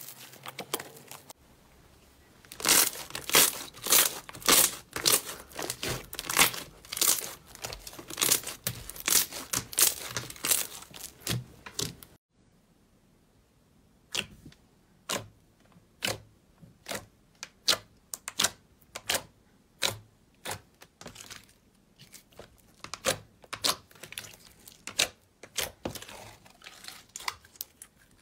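Slime being squeezed and stretched by hand, giving a dense run of sticky clicks and pops. After a cut about 12 s in, a sheet of clear glitter slime pressed and stretched by hand gives single pops about a second apart, which crowd together again near the end.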